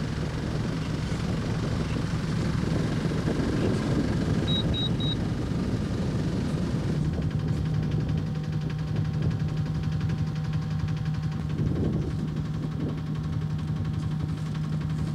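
Sailboat's engine running steadily with a low hum. Three quick high electronic beeps sound about four seconds in.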